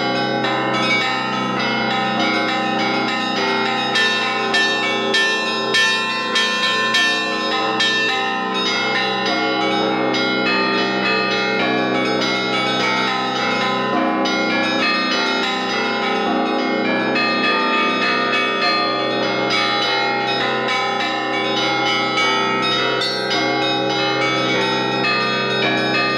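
Russian Orthodox monastery bells rung together in a continuous peal: quick rhythmic strokes on the small bells over the steady hum of the large bells. The strokes come most strongly about four to seven seconds in.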